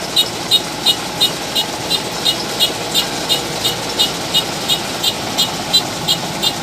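Kubota DC-105X combine harvester running, with a sharp high-pitched click repeating evenly about three times a second over the steady engine.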